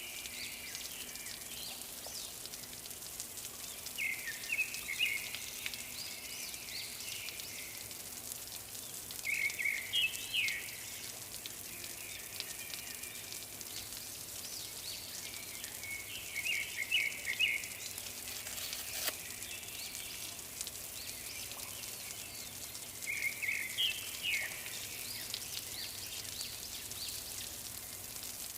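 A bird singing a short chirping phrase four times, about every six or seven seconds, over a steady hiss, with a single sharp click about two-thirds of the way through.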